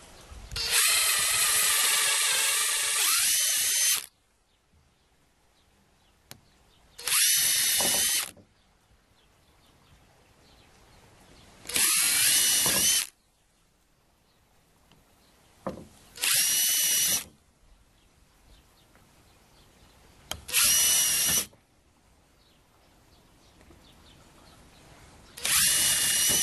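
Handheld electric drill boring small holes into a softwood board, run in six separate bursts: a long one of about three seconds first, then five of about a second each, several seconds apart. Each burst is a steady motor whine.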